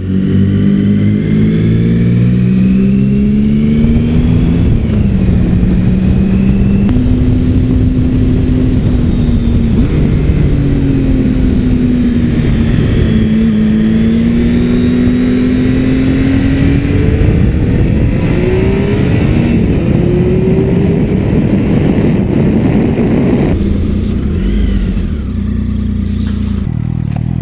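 Triumph Sprint ST 1050's three-cylinder engine under way, its pitch rising and falling as the bike accelerates and eases off, over a steady rush of wind and road noise. The sound jumps abruptly twice.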